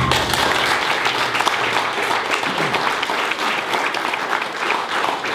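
A crowd of people applauding, many hands clapping at once in a dense, steady patter.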